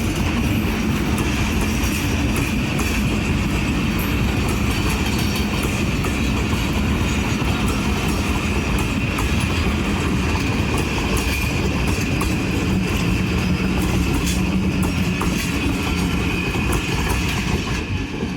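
Passenger train running on the rails: a steady rumble of wheels and coaches with clickety-clack, and a constant high ringing tone over it.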